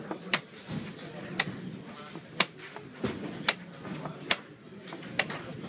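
Sharp wooden clicks about once a second from a fast blitz chess game: pieces set down on the board and the chess clock's buttons pressed in turn. A low murmur of voices runs behind.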